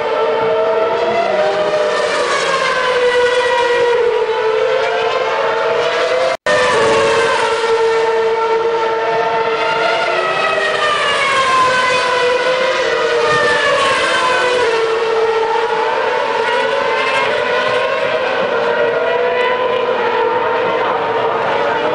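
Several Formula One cars' 2.4-litre V8 engines running at high revs around the circuit, their notes overlapping and repeatedly rising and falling in pitch through gear changes and braking as the cars pass. The sound cuts out for an instant about six seconds in.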